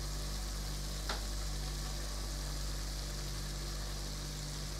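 Steady sizzling of vegetables in a hot pan, with one faint click about a second in.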